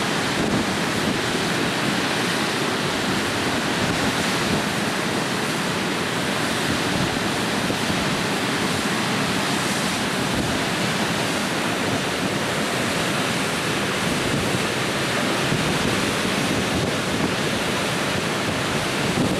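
Odra river water spilling over a low weir and churning below it: a steady, even rush of falling water.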